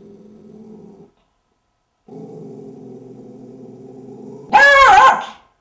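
Poodle growling low and steadily, breaking off about a second in and starting again a second later. Near the end a man gives a short, loud scream.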